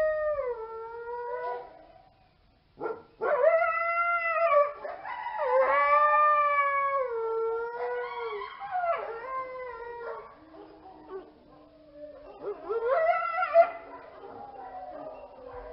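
Coyotes howling: several long, wavering howls that overlap and slide down in pitch at their ends, with a short break about two seconds in.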